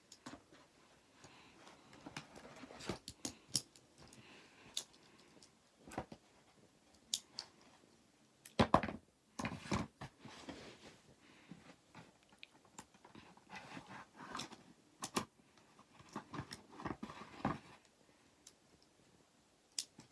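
Hands handling a miniature model gun kit and its packaging: scattered small clicks and taps with bits of rustling, busiest about halfway through.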